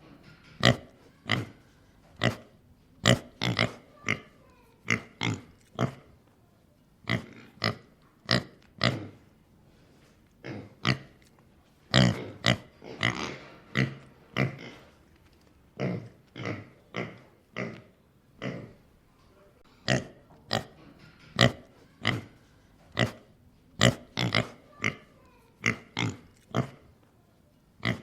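Pig grunting: a run of short, separate grunts, about one or two a second, in groups with brief pauses between them. A longer, noisier grunt comes about twelve seconds in.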